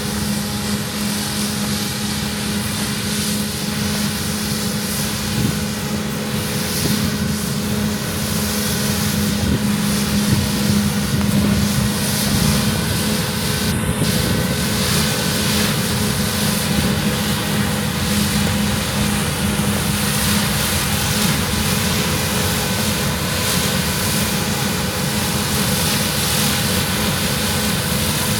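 Claas Lexion combine harvester running steadily while harvesting wheat: a constant machine drone with a steady low hum.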